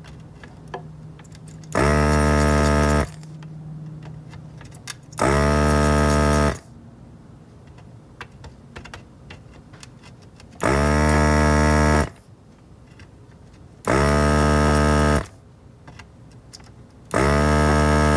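Vacuum desoldering gun's built-in pump buzzing in five short bursts of about a second and a half each as it sucks molten solder out of an IC's pin holes. Faint clicks of the tip against the board come between the bursts.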